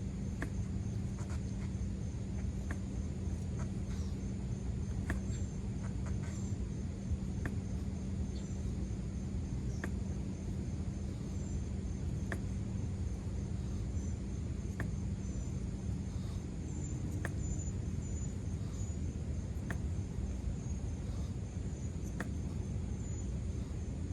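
Outdoor ambience of insects chirping in a fast, even, high-pitched pulse with occasional higher chirps, over a steady low rumble and hum.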